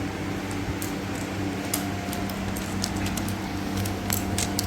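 Plastic keycaps being pulled off a computer keyboard: a few scattered sharp clicks over a steady hum.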